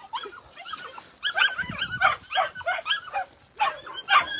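Several puppies whimpering and yipping: a rapid run of short, high-pitched cries, sparse at first and thick from about a second in, with a brief lull shortly before the end.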